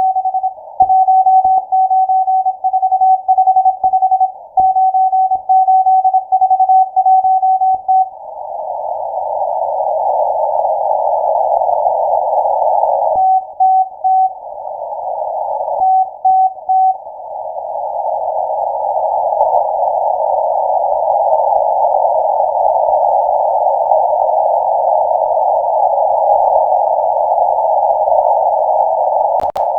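Morse code from the M12 numbers station received on a shortwave software-defined radio: a single-pitched beep keyed in dots and dashes. About eight seconds in, the keying stops and a narrow band of radio hiss takes over, broken twice by short keyed groups.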